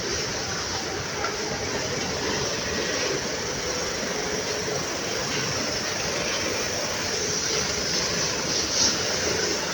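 Automatic cap sewing machine running: a steady mechanical noise, with a brief louder burst near the end.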